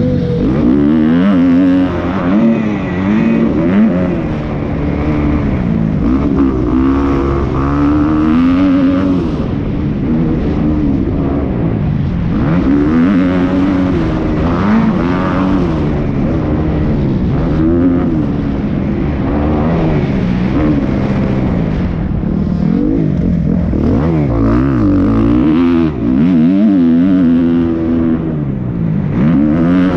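Motocross dirt bike engine revving hard and easing off over and over as the rider works the throttle and shifts around the track, its pitch climbing and dropping every second or two.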